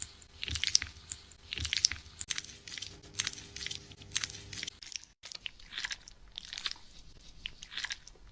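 Fingers scratching and scrubbing a scalp through the hair during a hair wash, heard close up. The strokes are crackly and rhythmic, about one or two a second.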